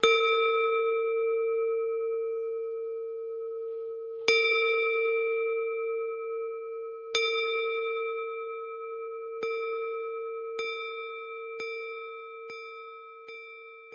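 A Buddhist meditation bowl-bell is struck eight times, always at the same pitch, and each strike rings on. The strikes come closer together and grow softer, in the slowing-down-to-quicken pattern used to open a session.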